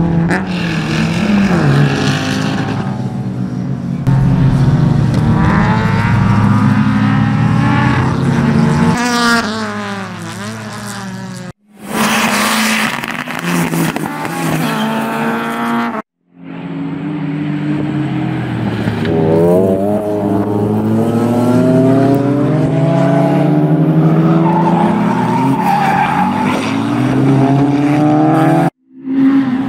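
Track cars being driven hard on a circuit, one clip after another: a Ford Escort RS Cosworth, then a Volvo 240 estate, then a Honda Integra. The engines rev up and fall back with the gear changes and the tyres squeal through the corners. The sound cuts out briefly three times at the edits.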